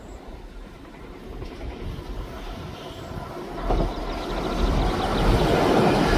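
A train approaching along the line, its rumble growing steadily louder, much more so in the second half.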